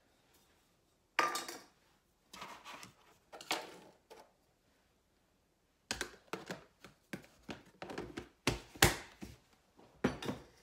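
Kitchen handling sounds: a sharp knock, then a few scrapes and knocks, then from about six seconds in a quick run of clinks and knocks of utensils and dishes being handled on the counter.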